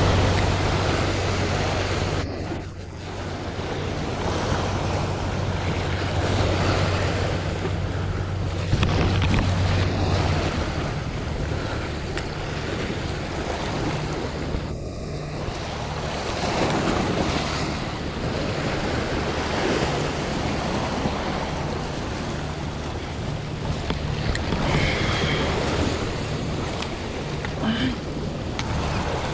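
Sea waves washing and wind buffeting the microphone, an unbroken rushing noise. A low steady hum runs under it for the first third and then fades.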